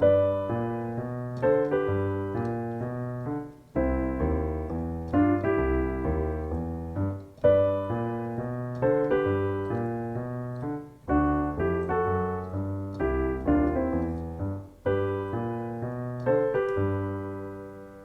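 Blues piano piece played through: a walking bass in the left hand under right-hand double notes. It runs in phrases of about four seconds, and the final chord fades away near the end.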